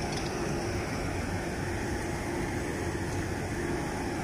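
Diesel engine of a large crawler crane running steadily, a constant low hum.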